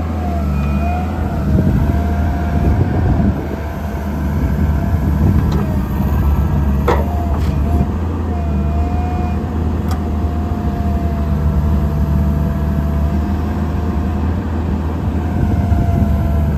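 JCB Midi CX backhoe loader's diesel engine running steadily, with a thin whine over it that wavers slightly in pitch. A sharp click comes about seven seconds in and another about ten seconds in.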